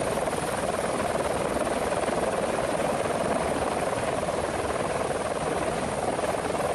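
Helicopter in flight, its rotor and engine giving a steady, dense noise.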